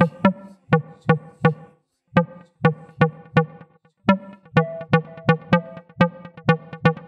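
Electronic dance music with a steady kick-drum beat and synth notes; it breaks off briefly about two seconds in and again about four seconds in.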